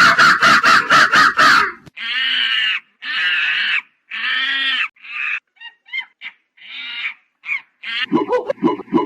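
Monkey calls: a rapid chattering run of about five calls a second for the first two seconds, then three drawn-out calls, then short squeaks and chirps.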